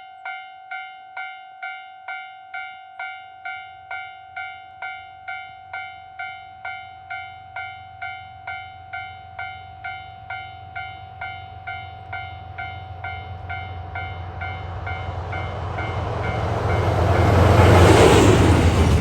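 Japanese level-crossing warning bell ringing in an even beat of about two and a half strikes a second. A train then comes up and passes, its rumble and wheel noise growing until it drowns the bell near the end.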